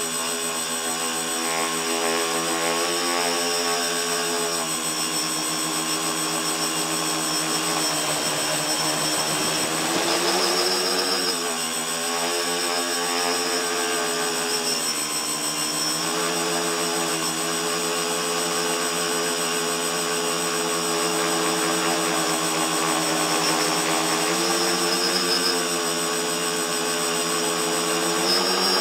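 A multirotor's electric motors and propellers, heard through the tricopter's onboard camera, running with a steady buzzing whine. The pitch dips and rises about a third of the way in, and rises again near the end, as the throttle changes.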